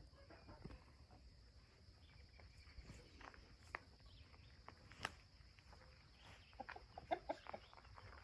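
Faint chickens clucking over near silence, with a quick run of short clucks near the end and a few scattered light clicks.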